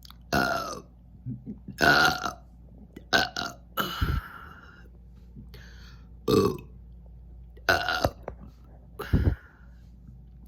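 A woman burping on command, a string of about seven separate burps, some short and some drawn out.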